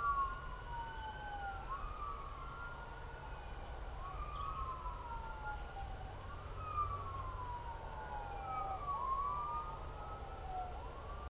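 Distant emergency-vehicle sirens wailing, the pitch rising quickly and falling slowly about every two and a half seconds, the sweeps of more than one siren overlapping. A low rumble sits underneath.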